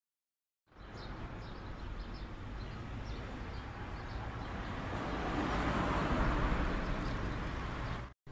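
Outdoor street ambience that starts abruptly about a second in: a steady noise of traffic that swells as a vehicle passes and then eases, with faint bird chirps over it. It cuts off sharply just before the end.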